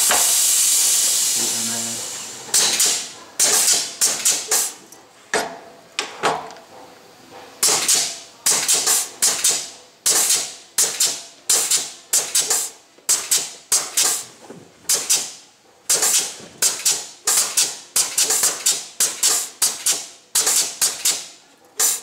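Compressed air on a pneumatic crimping machine: a steady hiss of escaping air that fades out about two seconds in, then a long run of short, sharp air-exhaust bursts at about two a second as its air valves and cylinders cycle.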